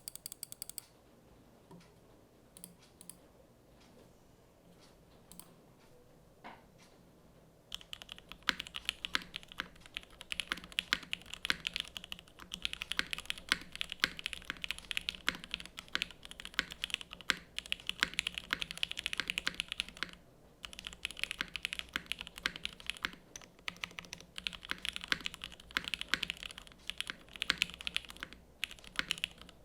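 Typing on a Sanction TKL mechanical keyboard with Gateron X R1 linear switches lubed with Tribosys 3204, GMK Dracula keycaps on an aluminium plate, top mount. A quick burst of keystrokes at the start and a few scattered presses give way to steady fast typing from about eight seconds in, with two short pauses later on.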